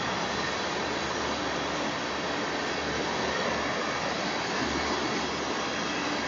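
Freight train of tank cars rolling past at speed: a steady, even noise of wheels on rail.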